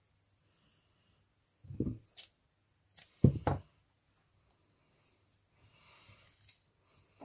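Handling noise: a few dull knocks and sharp clicks, the loudest about three and a half seconds in, then faint rustling as the denim ribbon bow is picked up and turned in the hands.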